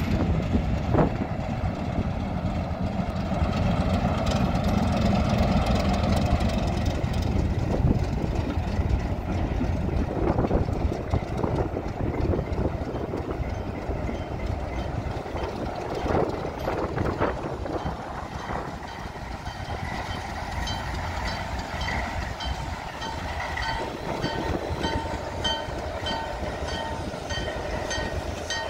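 Diesel locomotives running in a rail yard, a steady low rumble, with a switcher moving slowly along the tracks. In the last several seconds a repeated ringing comes in, about twice a second.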